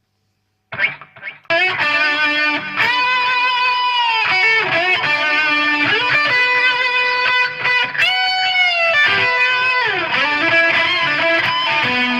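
Electric guitar lead solo through a ProCo Rat distortion pedal: after a moment of silence, a few picked notes, then long sustained, distorted notes with string bends and vibrato.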